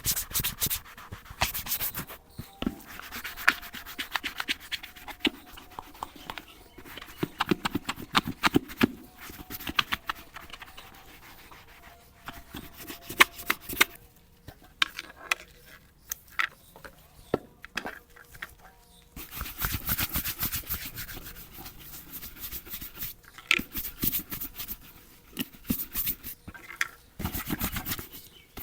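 Brushing and rubbing on leather boots, in stretches of scratchy scrubbing strokes with pauses between them, among small clicks and taps of the tools being handled.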